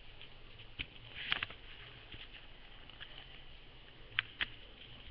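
A sheet of paper being folded and creased by hand: soft rustling with a few short crisp ticks, a cluster about a second in and two near the end.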